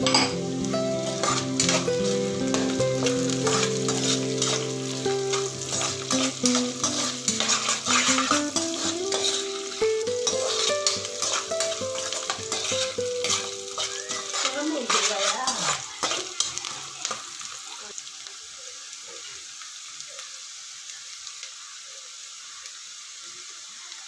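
Chopped green beans, onion and green chillies sizzling in hot oil while a steel slotted spoon stirs them, clicking and scraping against the pan. Soft background music runs underneath and fades out about two-thirds of the way in, leaving a quieter steady sizzle.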